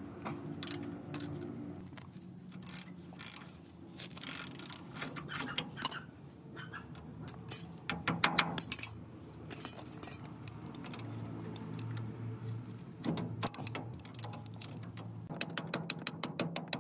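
Metal gearbox parts and hand tools clinking and knocking in irregular strikes over a steady low hum, with a quick run of clicks near the end.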